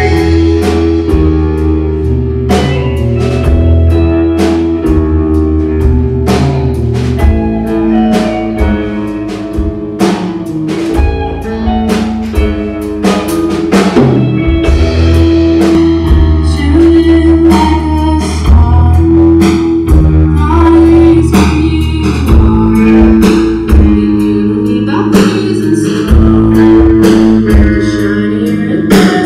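Live rock band playing a song: electric guitars and bass guitar over a drum kit keeping a steady beat.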